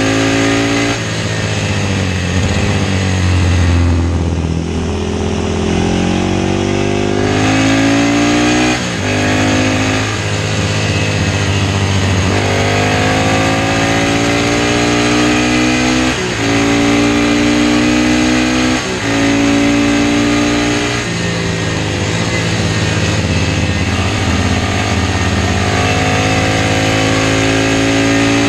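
Classic racing motorcycle engine accelerating hard through the gears. The revs climb and drop sharply at each upshift every two to three seconds. About four seconds in, the revs fall and stay low for a few seconds before it pulls away again.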